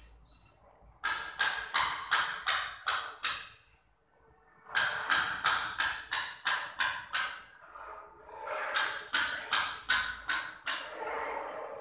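Hammer tapping in quick, even strokes, about three a second, in three runs of a few seconds each, each strike sharp with a ringing edge.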